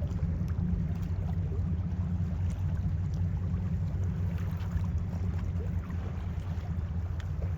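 Steady low rumble of a passing laker freighter, the Rt Hon Paul J. Martin, running light up the river.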